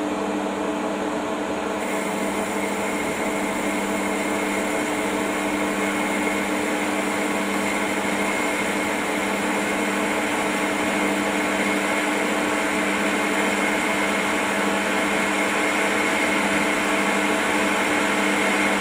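Metal lathe running steadily, a hum with several steady whining tones over it, while a high-speed-steel boring tool takes a finishing cut in the part's ER32 collet bore.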